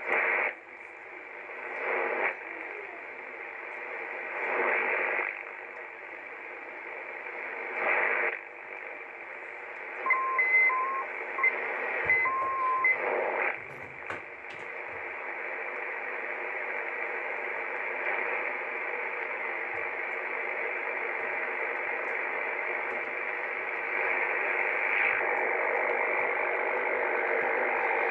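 Icom IC-725 HF transceiver's receiver hiss and static as the tuning dial sweeps across the band in USB mode, with brief swells of passing signals and a few short beeping tones about ten to thirteen seconds in. The hiss turns a little louder for the last few seconds.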